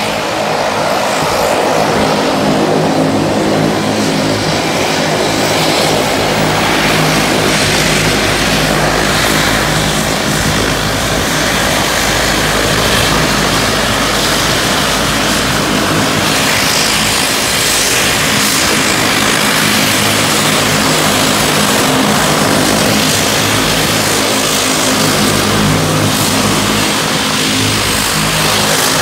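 Twin turboprop engines of an Air New Zealand Bombardier Dash 8 Q300 running as it taxis, propellers turning. The sound is a loud, steady hum of several low tones over a broad hiss.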